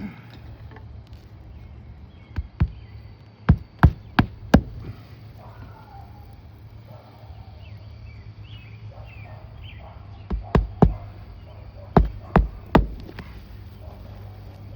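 About a dozen sharp knocks in quick runs of two to four, with a pause of several seconds between the two clusters: tool work on asphalt roof shingles during a repairability test.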